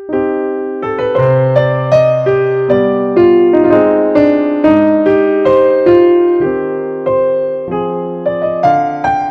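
Background music on a piano-like keyboard: a gentle tune of struck notes and chords, each note fading after it is struck, about two notes a second.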